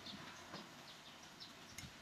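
Faint metal clicks and ticks as a circular saw blade and its arbor nut are fitted by hand, with a sharper tick about half a second in and another near the end.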